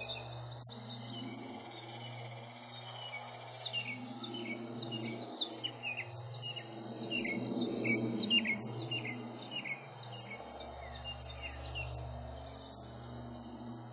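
Outdoor countryside ambience: insects pulse steadily at a high pitch, a few beats a second. In the middle a bird sings a long run of quick, falling chirps, over a low steady hum.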